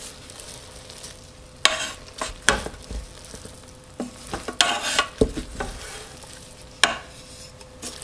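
Wooden spoon stirring hot, freshly pressure-cooked chicken fried rice in the cooker's inner pot: a handful of separate scrapes and scoops against the pot, with a faint steady tone underneath.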